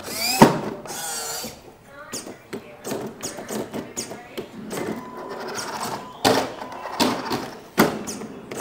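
Redcat lowrider RC car hopping on its servo-driven suspension: small servos whirring as the front and rear ends rise and drop, with repeated sharp knocks as the wheels and chassis come down on the tile floor.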